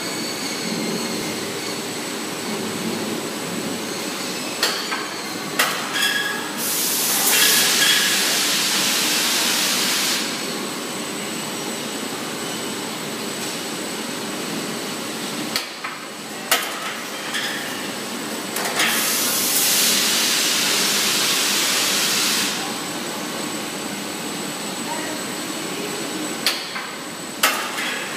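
Automatic tagliatelle fresh-pasta production line running with a steady machine hum. A working cycle of about twelve seconds repeats: two sharp clicks about a second apart, then a long hiss of three to four seconds.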